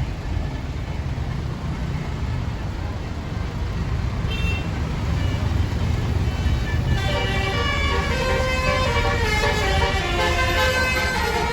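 Bus engine rumble, then from about seven seconds in a bus's 'telolet basuri' musical multi-tone air horn plays a tune of held notes stepping up and down in pitch.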